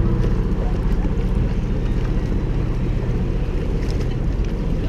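Wind buffeting the microphone of a head-mounted action camera, a loud low rumble, over paddles splashing as a canoe is paddled along.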